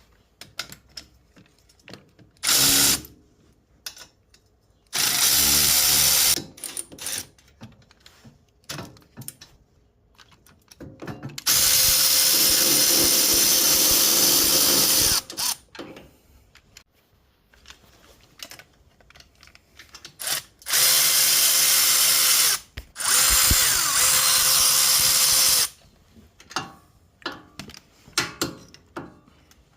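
Handheld power drill-driver run in five bursts of half a second to about four seconds, the longest about twelve seconds in, driving fasteners during an engine teardown, with short clicks and knocks of tool handling between the bursts.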